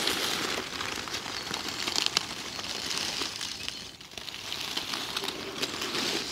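Dry leaf litter and dead wood rustling and crackling as a rotten log is lifted and turned over by hand, with many small snaps and crunches.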